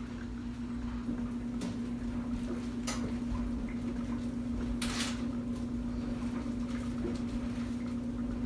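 Kitchen handling noises over a steady low hum: light clicks about one and a half and three seconds in, then a short rustle near the middle, like a cupboard being worked and something being taken out.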